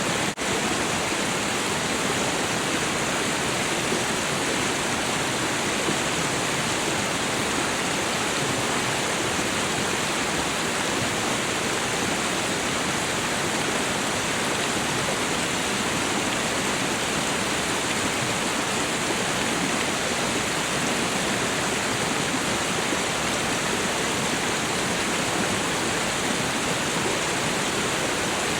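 Waterfall, water falling and splashing in a steady, unbroken rush, with a brief momentary dip in level about half a second in.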